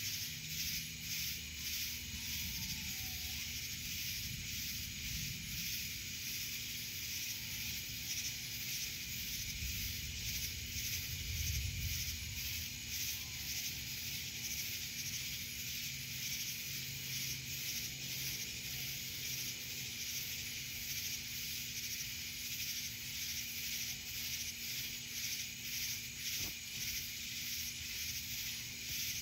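Night chorus of cicadas and other insects: a dense, high buzz pulsing steadily a couple of times a second. A low rumble swells briefly about ten to twelve seconds in.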